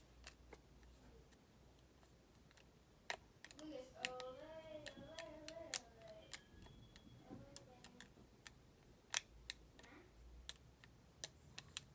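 Faint scattered clicks and light taps of small plastic parts and a paintbrush being handled, with a brief wordless voice, a hum or murmur, about four seconds in.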